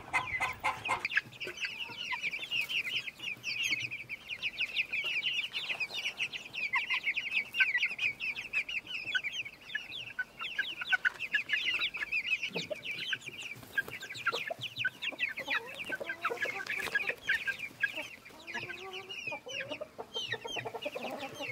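A flock of chickens calling: a dense, rapid stream of short high-pitched cheeps, joined by lower clucks near the end.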